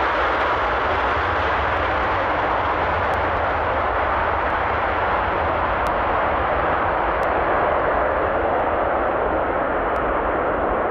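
Panavia Tornado's twin RB199 jet engines in afterburner during the take-off roll, a loud steady roar that loses its hiss as the jet pulls away down the runway.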